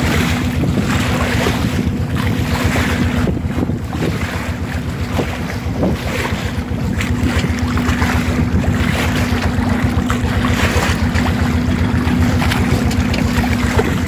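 A sailboat under way with its engine droning steadily, water washing along the hull and wind buffeting the microphone.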